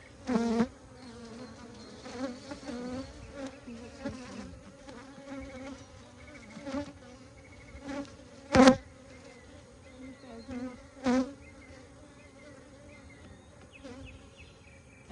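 Honeybees buzzing around an open hive, a steady hum throughout. Three brief, much louder buzzes stand out: one just after the start, the loudest about two-thirds of the way through, and another a couple of seconds later, as bees fly close past the microphone.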